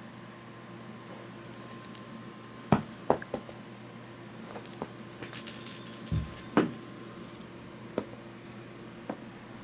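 A small cat toy jingling for about two seconds a little past the middle as it is shaken. A few scattered light knocks and clicks come before and after it, over a steady low hum.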